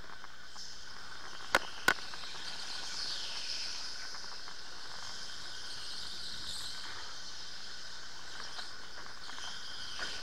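Electric go-kart running at speed on track: a steady high-pitched whine from its electric drive. Two sharp clicks come close together about a second and a half in.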